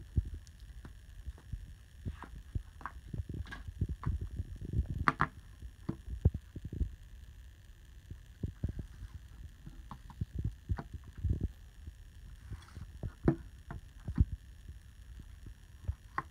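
Handling noise of a Blu-ray case, booklet and disc being moved about on a table: irregular soft thumps and taps with a few sharper clicks, over a faint steady electronic hum.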